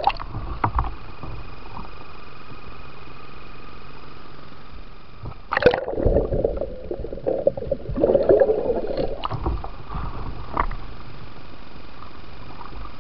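Water splashing and gurgling around a body-mounted camera as a kayak goes over and rolls back up. There is sloshing near the start and a steady muffled hiss, then a sudden loud splash about five and a half seconds in, followed by a few seconds of churning and gurgling before the steady hiss returns.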